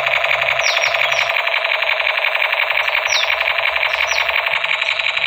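Battery-powered toy MP5 light gun playing its electronic machine-gun sound effect through its small speaker: a steady, rapid rattle that runs on without a break. Birds chirp briefly a few times above it.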